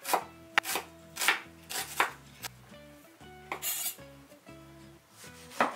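A cleaver chopping an onion on a wooden cutting board: sharp knife strikes on the board, about one every half second at first, then fewer.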